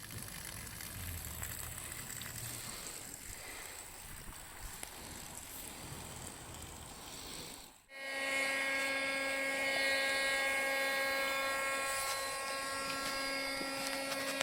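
A steady rushing noise for about the first half. After a brief break, a hot-air blower's motor starts running with a steady whine, blowing hot air into the water-tested air receiver to dry it out.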